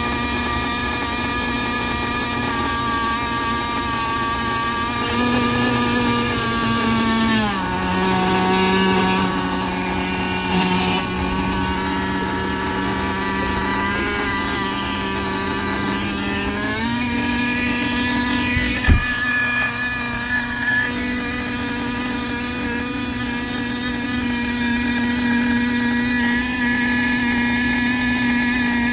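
Small two-stroke nitro glow engine of a 1/10-scale XRAY RC car idling steadily on the bench. Its speed drops about seven seconds in and comes back up about ten seconds later, with a single sharp knock shortly after.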